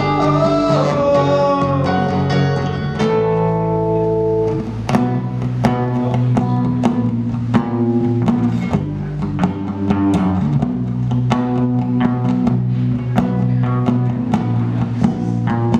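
Live band music: a sung line over acoustic guitar and electric bass in the first few seconds, then an instrumental passage of rhythmically strummed acoustic guitar over a steady electric bass line.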